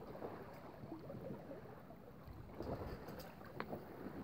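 Faint water gurgling and lapping along the hull of a small sailing dinghy moving slowly downwind in light air, with a few light clicks from the boat about half a second in and again near the end.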